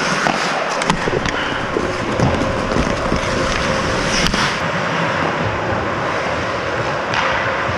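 Ice hockey play: skate blades scraping and carving the ice in a steady hiss, with several sharp clacks of sticks and puck.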